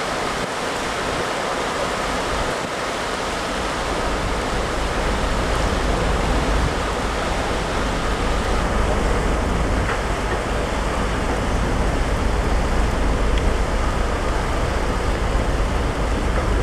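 Steady rushing of water churned up by the propeller wash of the car ferry Ferry Katsuragi as it gets under way, with a deep rumble that swells in after a few seconds and holds.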